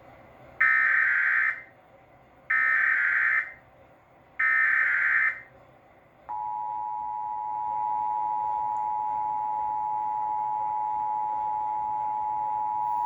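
Emergency Alert System tones: three short, harsh SAME header data bursts about two seconds apart, encoding a 911 Telephone Outage Emergency alert. About six seconds in, the steady two-tone EAS attention signal begins.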